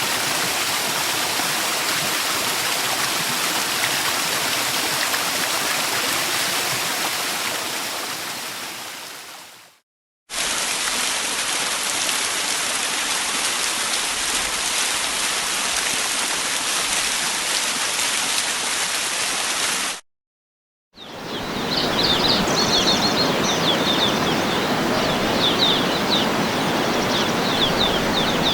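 Steady rushing water of a waterfall, in three separate recordings: the first fades out about ten seconds in, the second cuts off abruptly about twenty seconds in, and after a second of silence the third returns with small birds chirping over the water.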